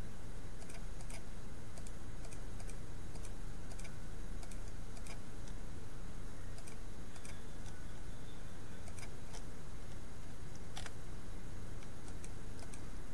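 Computer keyboard being typed on in scattered, irregular keystrokes, over a steady low hum.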